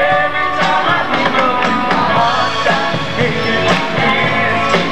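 Live pop-rock band playing a song: drum kit keeping a steady beat under electric guitar and keyboard, with a singer's voice over the top.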